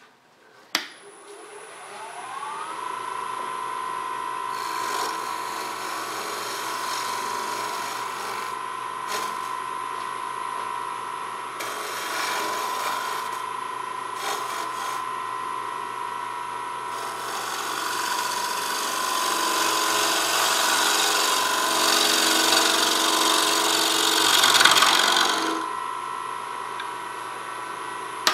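A wood lathe is switched on with a click about a second in, and its motor whine rises for a second or two, then holds steady. Over it, a gouge cuts the spinning dry elm bowl blank in several scraping passes. The longest and loudest pass runs from about 17 to 25 seconds in.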